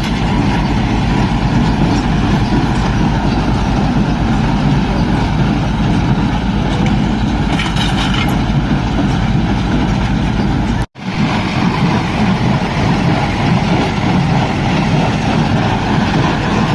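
Sonalika baler working behind a tractor, the tractor's diesel engine running steadily with the baler's machinery noise. The sound drops out for an instant about two-thirds of the way through.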